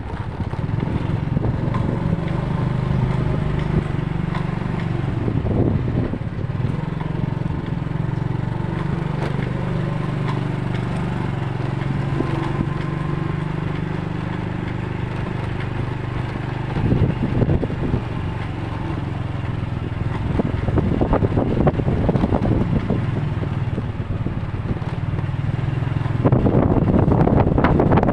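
Road vehicle engine running steadily on the move: a low, wavering hum with traffic and wind noise on the microphone, getting louder near the end.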